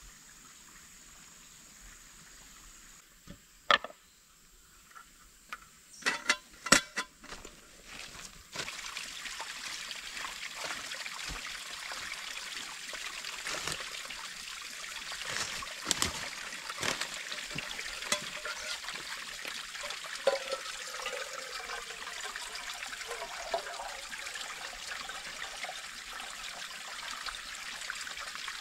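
A few sharp knocks and clatters, then, from about a third of the way in, a small stream of water trickling steadily over rocks, with a few brief splashes.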